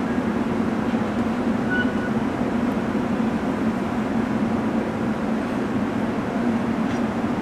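Freight train's container wagons rolling past, a steady rumble of steel wheels on rail.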